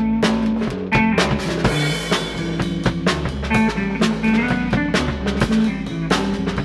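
Live band jam: a drum kit played hard, with dense drum and cymbal strikes, over a sustained bass line that moves between notes.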